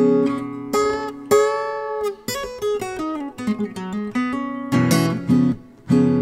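Acoustic guitar playing the instrumental close of a blues song, a mix of struck chords and single picked notes.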